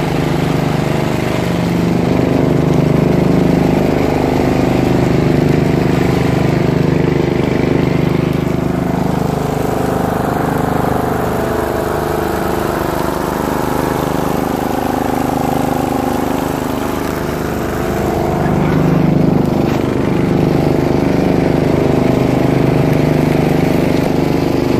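Craftsman Yard Bug DRM500 riding mower's 10 hp engine running steadily while mowing, its note wavering slightly now and then. It runs smoothly on a newly replaced carburetor, after the dirty old carb had it running rich and stalling.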